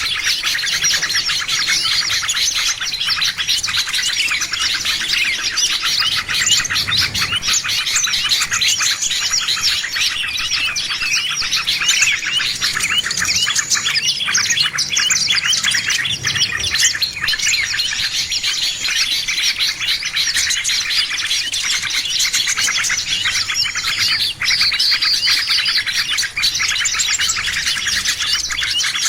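A dense chorus of many small songbirds chirping and twittering without a break, overlapping calls and trills. This is a bird-lure recording meant to draw small birds in.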